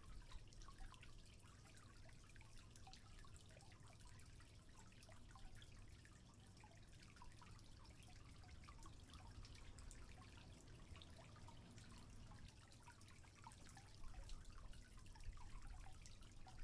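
Faint trickling water with many small, irregular drips and droplet ticks.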